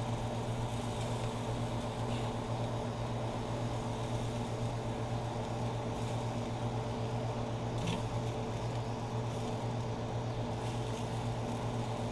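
Steady mechanical hum with a constant low drone, from a motor-driven machine such as a fan unit, with one faint click about eight seconds in.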